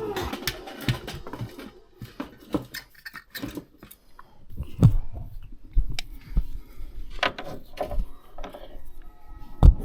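Irregular clicks and knocks, a few a second with short quiet gaps, as of hard objects being handled.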